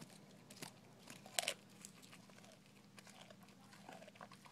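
A dog crunching and gnawing on frozen raw chicken heads: irregular sharp cracks of bone and beak between its teeth, the loudest crunch about a second and a half in.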